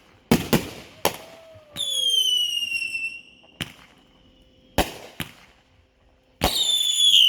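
Backyard consumer fireworks going off: a series of sharp bangs, with two whistling shots, one about two seconds in and one near the end. Each whistle falls slightly in pitch.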